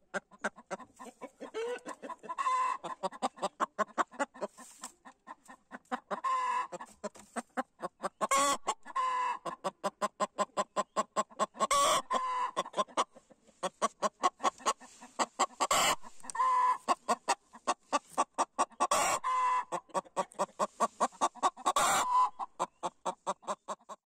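A hen on the nest clucking in fast, continuous runs, each run building to a louder squawk every three to four seconds: the cackle typical of a hen laying or announcing an egg.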